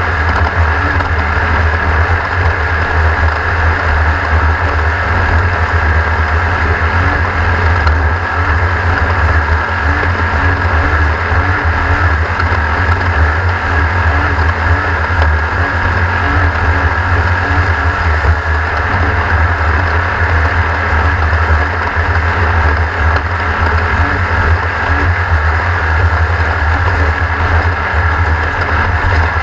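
Race vehicle's engine running steadily under a loud, constant deep rumble, with no clear revving up or down.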